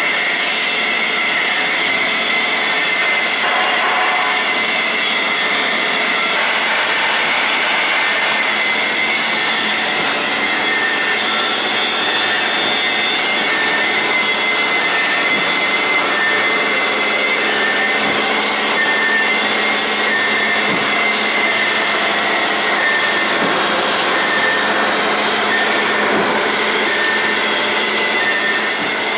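Servo-motor-driven three-fold garbage bag making machine running: a steady mechanical whir and hiss over a constant hum. From about halfway on, a faint short tone repeats about once a second.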